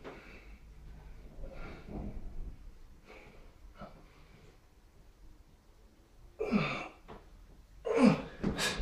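A man breathing hard through decline push-ups, with sharp breaths on the reps and two loud grunts of effort that drop in pitch near the end. A brief sharp knock comes right at the close.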